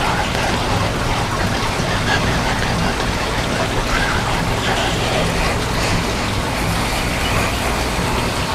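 Background music with a low bass line, faded in under the knot-tying.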